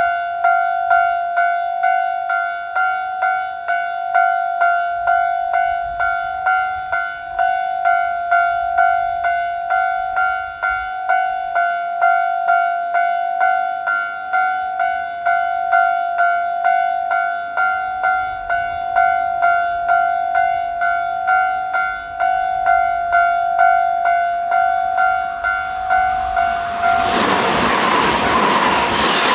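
Japanese railway level-crossing warning alarm ringing its 'kan-kan-kan' in a steady, rapid repeating rhythm. Near the end it cuts off and a loud, steady rushing noise of a passing train takes over.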